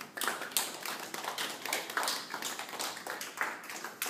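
A small group of people applauding, their separate hand claps heard distinctly in a quick, irregular patter.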